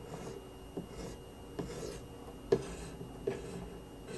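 Light scraping passes of a coarse CBN (elbor) stone on a guided sharpening system's arm across a CPR-steel knife's convex bevel, with a small knock about every 0.8 s, the loudest about two and a half seconds in. These are trial strokes while the stone's contact and angle on the bevel are being set.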